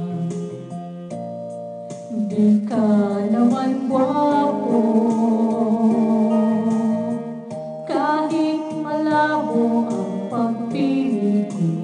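A voice singing over instrumental backing music, with long held notes that slide between pitches.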